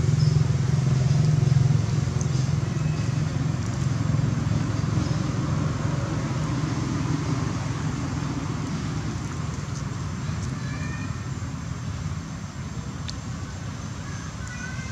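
A steady low motor hum that slowly fades away, with a few faint, short high chirps near the end.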